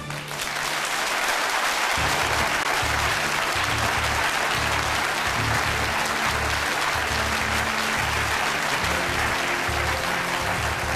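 Studio audience applauding, a dense continuous clapping, with the programme's theme music carrying on underneath as a pulsing bass beat.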